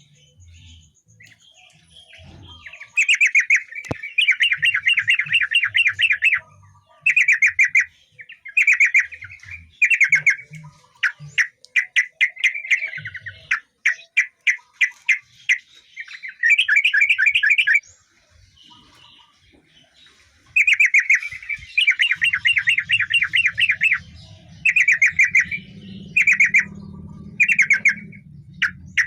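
Yellow-vented bulbul (trucukan) singing: repeated bouts of rapid chattering notes, each lasting one to two seconds, with short pauses between.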